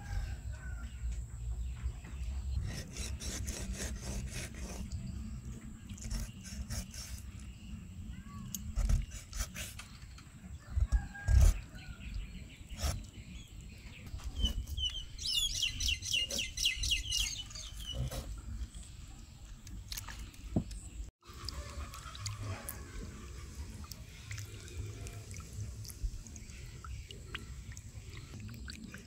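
Knife chopping catfish on a wooden chopping board, a run of sharp knocks, with a bird chirping briefly about halfway. Later, softer wet splashing as hands wash the cut fish in a basin of water.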